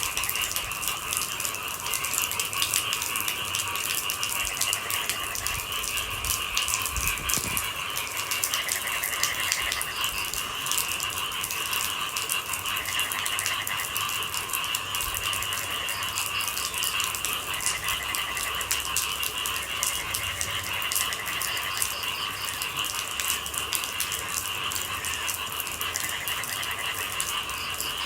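Steady rain pattering with a continuous, pulsing chorus of night-calling animals, and short trills breaking in now and then.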